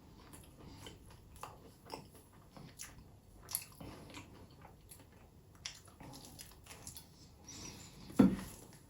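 Close-miked eating sounds: biting and chewing with scattered crisp little clicks, and one louder dull thump near the end.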